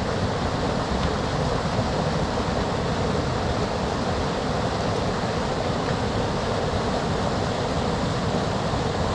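Steady rush of fast-flowing river water tumbling over a weir, an even noise without breaks.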